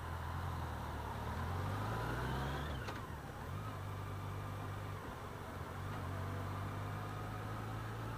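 Yamaha FJR1300's inline-four engine running at low speed in traffic. Its pitch rises for a couple of seconds, then drops with a short click about three seconds in, and the engine runs on steadily.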